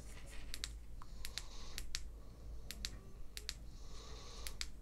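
Side push-button switch of a Shadowhawk LED flashlight clicking as it is pressed again and again: about a dozen light, sharp clicks, several coming in quick pairs.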